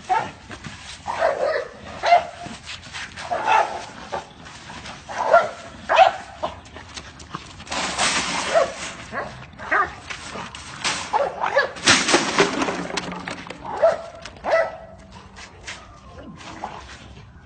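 A dog barking over and over, about one bark a second. Twice the barks give way to a loud rattling noise, the first as a metal shopping cart is shoved across the pavement.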